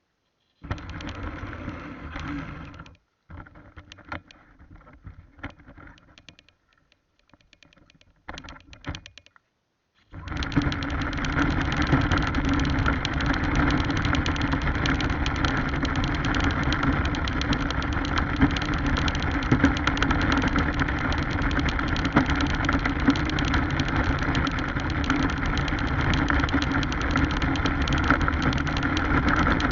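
Battery-powered radio-controlled car running, picked up by the action camera mounted on it: motor, gears and tyres heard close up. It moves in short start-stop bursts at first, then from about ten seconds in runs continuously and loudly.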